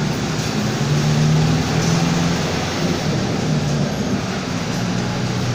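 Front-engined Mercedes-Benz OF-1722M city bus on the move, heard from on board: a steady engine and drivetrain drone made of several low tones that shift in pitch now and then, over road and body noise.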